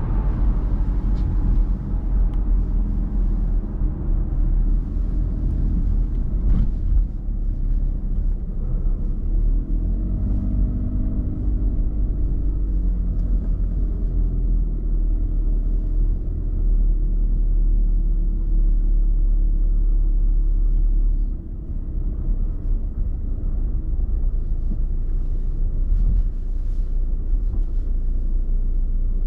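Car cruising on a motorway: the steady low rumble of tyres and engine, dipping briefly about two-thirds of the way in.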